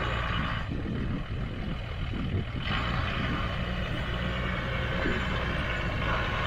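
Off-road 4x4 jeep's engine running at low speed with a steady low rumble as it crawls along the track. A rushing hiss joins in a little under three seconds in.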